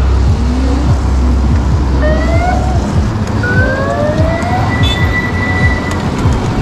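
Electric scooter motors whining as they pull away, several rising whines climbing in pitch as the scooters speed up, over a steady rushing noise of riding.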